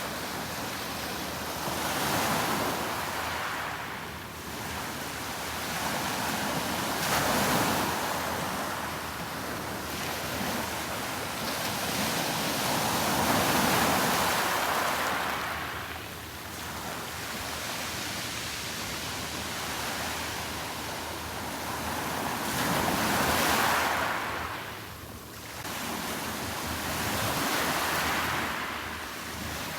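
Sea waves breaking and washing up the shore, the surf swelling and ebbing every several seconds.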